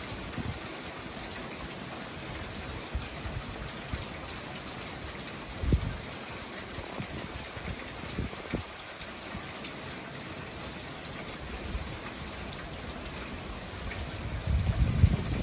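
Steady rain falling during a passing storm, an even hiss with a couple of soft low thumps about six and eight and a half seconds in. A low rumble builds near the end.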